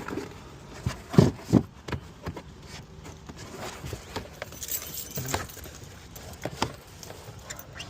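Irregular metallic clinks and knocks of tools and hardware being handled while getting a spare tire out from under a car, with two louder knocks about a second in.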